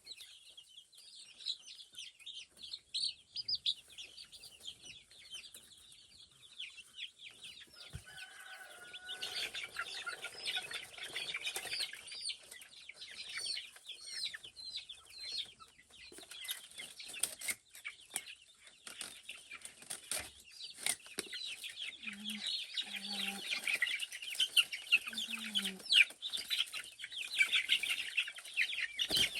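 A flock of chickens calling, with many short, high chirps that grow much denser about a third of the way in, and a few lower calls near the end.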